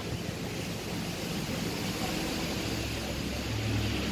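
Steady rushing outdoor background noise, with a low hum that grows louder about two and a half seconds in.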